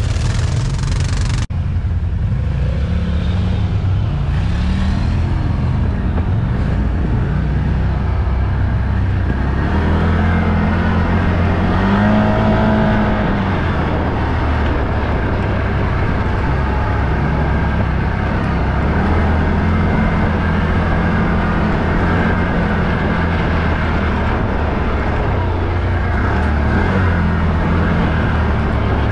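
ATV engine running under way on a dirt trail, its pitch rising and falling with the throttle. There is a sharp click about a second and a half in.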